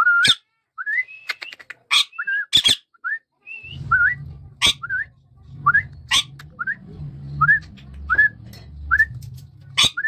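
Indian ringneck parakeet giving a run of short rising whistles, one or two a second, broken by brief sharp, shrill squawks.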